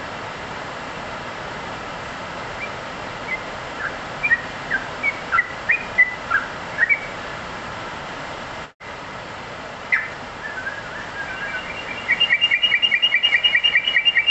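Caged yellow-vented bulbul (cucak trucuk) singing: scattered short chirps at first, then near the end a fast, even run of repeated notes, about eight a second. A steady hiss lies underneath.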